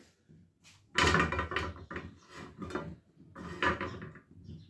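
Kitchen handling noise: pots, utensils and other items knocked and set down in two bursts of clatter, about a second in and again near the end.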